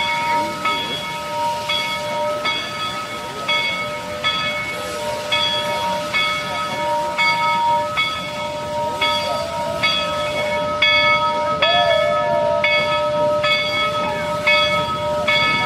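A steam locomotive's bell ringing steadily, struck about twice a second, each stroke over a sustained hum.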